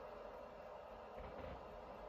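Quiet room tone: a faint, steady hiss with no distinct sounds.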